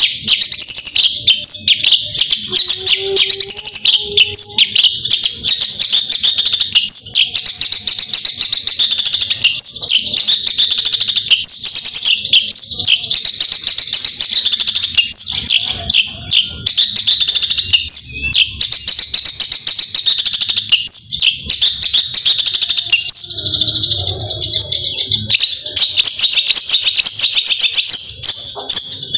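Long-tailed shrike (cendet) singing a fast, nonstop chattering song of sharp, high notes, breaking off briefly about three-quarters through.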